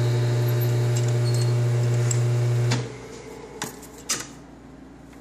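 Metal lathe running with a steady low motor hum as it turns a rifle barrel for chambering with a reamer. The hum stops suddenly a little under three seconds in. Two sharp metallic clicks follow about half a second apart.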